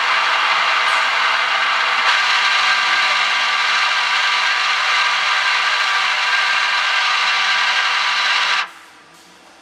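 Tsugami BN20 CNC Swiss screw machine running, a steady mechanical hiss and whir that drops away abruptly near the end.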